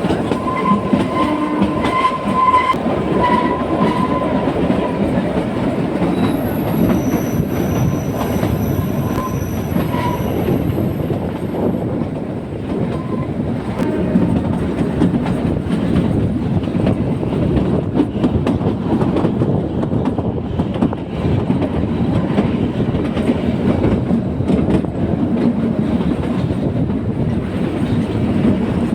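Kalka–Shimla narrow-gauge train running, its wheels clattering steadily over the rail joints, with thin high-pitched wheel squeals in the first half.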